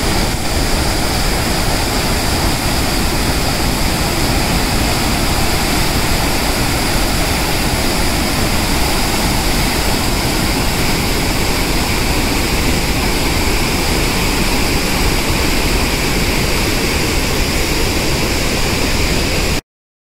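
A large waterfall in flood, with muddy water pouring over a wide rock ledge. It makes a loud, steady rush of falling water that cuts off suddenly near the end.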